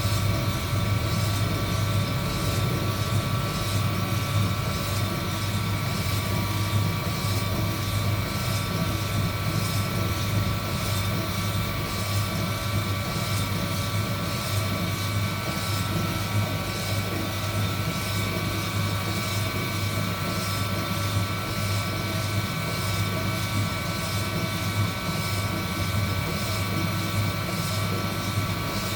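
Heat gun running steadily in a DIY coffee roaster, a constant hum with a steady whine over it.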